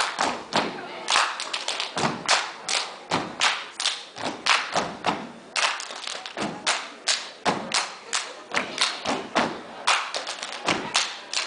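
Step team stomping on a stage floor and clapping in a rapid, even rhythm of about three strikes a second.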